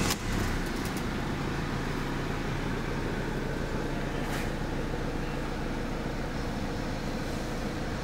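Mercedes-Benz C220's four-cylinder diesel engine idling steadily in Park, heard from inside the cabin as an even low hum.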